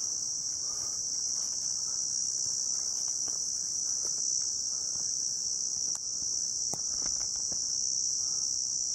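Chorus of insects in the grass and forest, a steady high-pitched chirring drone without a break.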